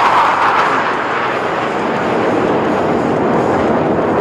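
BAE Hawk jet trainer of an aerobatic team passing low. Its higher engine whine fades during the first second into a loud, steady jet roar.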